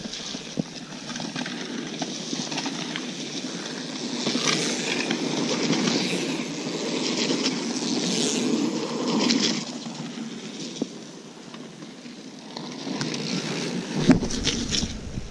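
Mountain bike tyres rolling over a loose gravel trail as a rider comes down a berm and passes close by, the noise building to its loudest about nine seconds in and then fading. Near the end comes a knock and a low rumble as the camera is handled.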